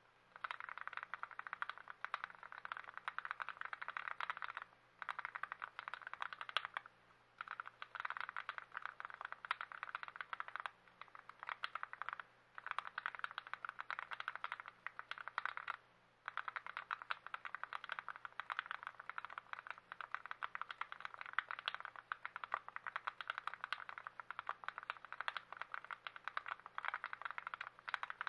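Fast, continuous typing on a lubed and assembled TX66 custom keyboard: a dense run of keystroke clicks that breaks off briefly about five times.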